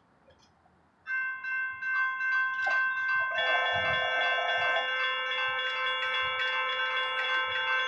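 Two Safetran Type 1 electronic crossing bells ringing while the crossing gates rise. The first bell starts about a second in and the second joins a couple of seconds later, both ringing steadily.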